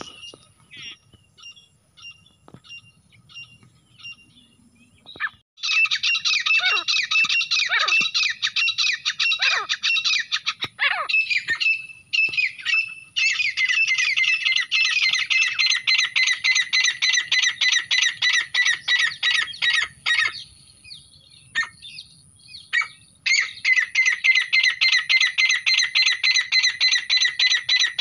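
Grey francolin calling: a few short, scattered calls, then three long bouts of fast, rapidly repeated shrill notes, starting about five seconds in, about halfway, and near the end.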